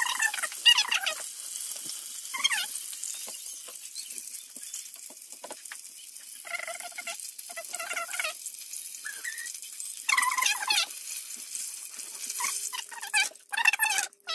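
Breaded chicken strips frying in hot oil in a pan, a steady high sizzle. Short squeaky, cry-like sounds break in over it several times.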